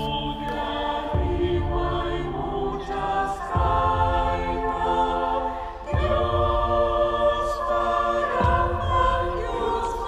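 Trailer score: a choir singing held chords, with a deep boom about every two and a half seconds as each new chord begins.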